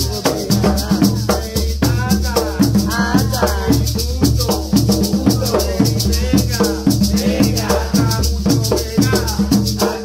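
Live traditional hand-drum ensemble: two skin-headed wooden hand drums struck with the palms and a pair of gourd maracas shaken in a fast, steady rhythm. A voice sings over the drumming.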